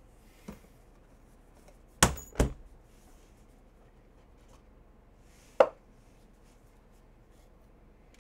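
Sharp hard clacks from a Panini Flawless football box being handled as the black card holder comes out of its aluminium case: two close together about two seconds in, and another a little past halfway.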